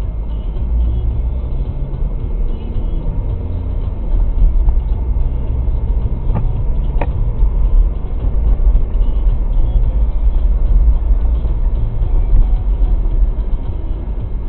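Car engine and road noise heard from inside the cabin while driving: a steady low rumble, with two short clicks around the middle.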